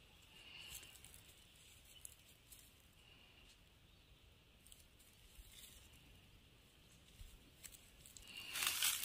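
Quiet open-air background with a few faint high chirps, then near the end a loud burst of rustling and crackling.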